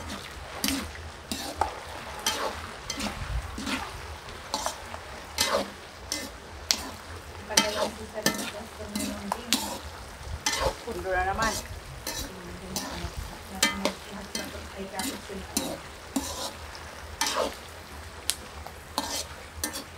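Slotted metal skimmer scraping and clattering against a metal wok as peanuts and garlic slices are stirred while deep-frying, the hot oil sizzling underneath. The scrapes and rattles come irregularly, about one or two a second.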